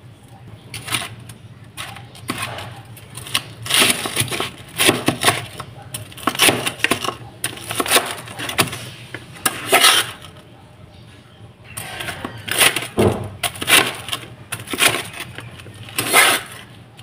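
Large kitchen knife slicing through the crisp breaded crust of a deep-fried pork cutlet (tonkatsu) on a bamboo cutting board: loud clusters of crunching, crackling cuts with short pauses between them.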